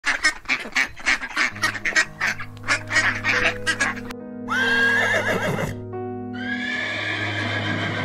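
Ducks quacking in a rapid chatter for about four seconds, then a horse whinnying twice with a wavering pitch, over background music with a steady low drone.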